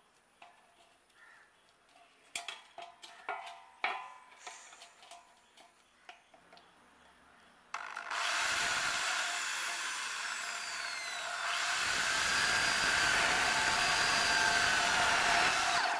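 A few light taps of metal being handled, then about eight seconds in a power tool such as an angle grinder starts cutting metal. It runs loud and steady with a high whine that falls in pitch over its first few seconds, then stops abruptly at the end.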